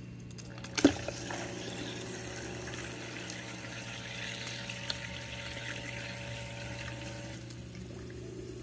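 Hygger auto top-off system's small water pump switching on with a click, then water trickling into the aquarium with a faint motor hum, cutting off suddenly about a second before the end. A steady low hum of aquarium equipment runs underneath.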